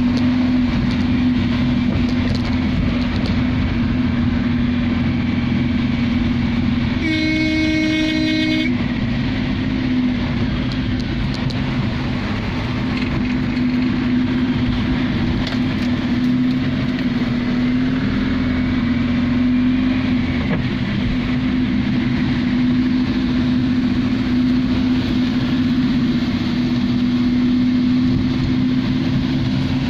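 Heavy rain on a moving car, heard from inside the cabin over a steady low drone from the car. A vehicle horn sounds once, for nearly two seconds, about seven seconds in.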